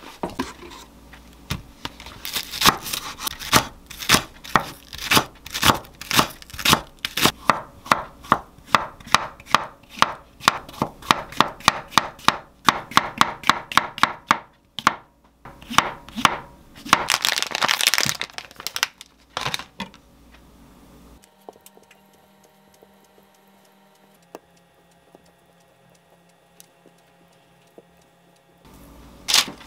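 Chef's knife slicing button mushrooms on a wooden cutting board: quick, even knife strokes hitting the board, about three a second, with a couple of short pauses. The strokes stop about two-thirds of the way through, and after a quieter stretch there is one more stroke near the end.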